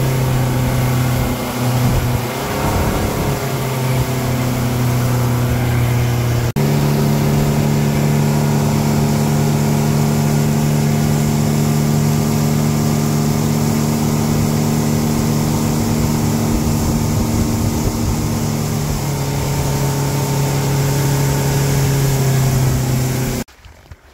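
Motorboat engine running steadily under way, with rushing wind and water over it. The engine note wavers a little over the first few seconds, steps abruptly about six and a half seconds in, then holds steady until it cuts off suddenly near the end.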